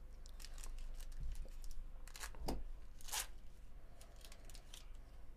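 Crinkling of a trading-card pack's foil wrapper and chrome cards being handled in gloved hands. It comes as a run of short rustles, the loudest about three seconds in.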